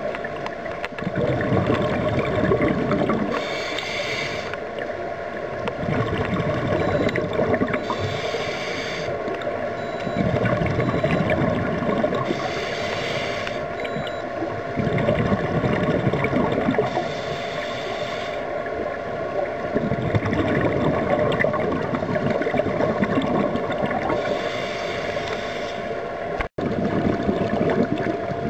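A scuba diver breathing through a regulator underwater. A hiss on each inhalation alternates with a bubbling, gurgling exhalation, about one breath every four to five seconds, over a faint steady hum. The sound cuts out for an instant near the end.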